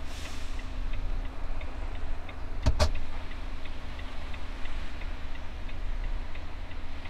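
Truck cab with the engine idling as a steady low rumble, an indicator relay ticking evenly about two to three times a second, and two sharp clicks close together about three seconds in.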